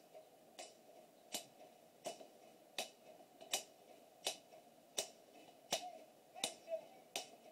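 A person's hands beating a slow, steady time: about ten sharp snaps, one roughly every three-quarters of a second.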